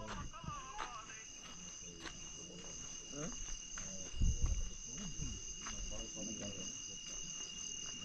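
Night insects, crickets, trilling steadily in a continuous high chorus, with a dull low bump about halfway through.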